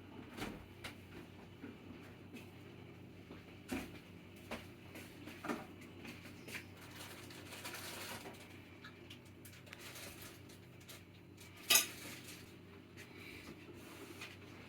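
Scattered light clicks and knocks of small hard plastic parts as a Yale AC-DC door/window alarm contact is handled during a coin-cell battery change. The sharpest click comes about twelve seconds in.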